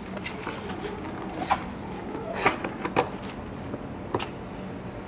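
Kittens scrambling and play-fighting on denim and cardboard: a few short scratchy rustles and taps from paws and claws, over a steady low hum.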